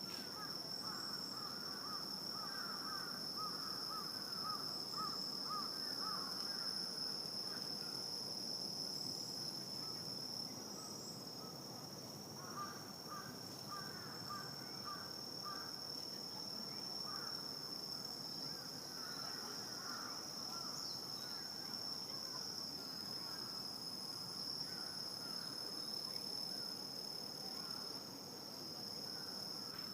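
Night insect chorus: a steady high-pitched drone, typical of crickets, with bursts of rapid lower chirping calls that come and go.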